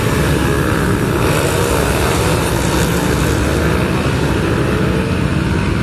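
A grid of 400cc and mini-twin racing motorcycles with their engines running together, several revving up and down at once in a steady, loud din.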